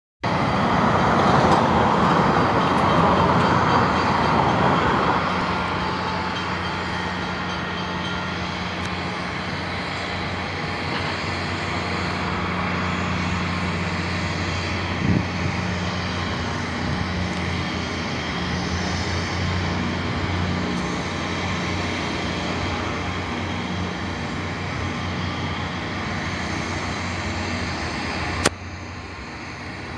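MBTA diesel commuter rail train approaching slowly, giving a steady low hum. A louder rush of noise fills the first few seconds, and a sharp click comes near the end.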